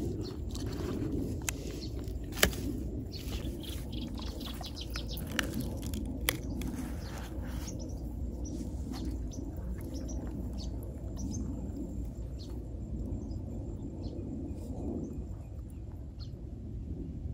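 Birds chirping over a steady low outdoor rumble, with a few sharp clicks, the loudest about two and a half seconds in and two smaller ones around six seconds.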